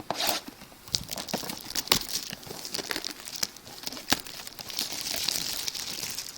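Packaging on a sealed box of baseball cards crinkling and tearing as it is ripped open by hand: scattered sharp crackles, thickening into a steadier crinkling about five seconds in.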